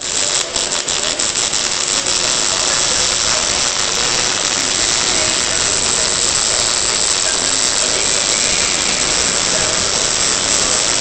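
Electric arc welding on sheet metal: the arc runs as a steady, loud hiss, with sharp crackles in the first couple of seconds.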